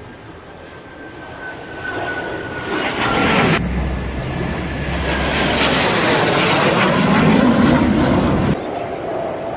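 A formation of jet fighters passing overhead. The jet engine roar swells over a couple of seconds, with a high whine falling in pitch as the jets go by. It stays loud for several seconds and then drops sharply near the end.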